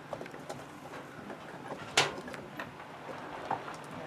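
Handling of a foil-covered reflector panel as it is tilted back: scattered light ticks and crinkles, with one sharp click about two seconds in.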